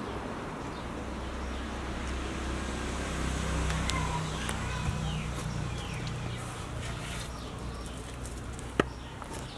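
Low engine rumble of a motor vehicle passing, swelling in the middle and fading, with a few short high chirps and one sharp click near the end.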